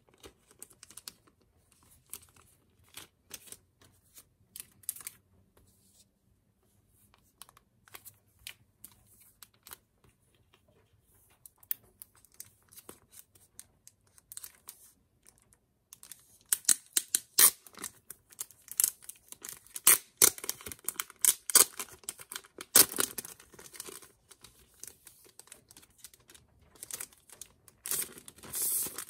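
Clear cellophane wrapping crinkling as it is handled and peeled off a photocard and a card package: scattered light crackles at first, then a dense run of loud crackling in the second half.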